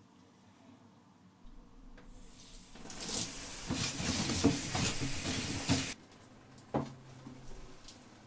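Shower water spraying hard for about three seconds, building up over a second before it and cutting off suddenly; a single knock follows a second later.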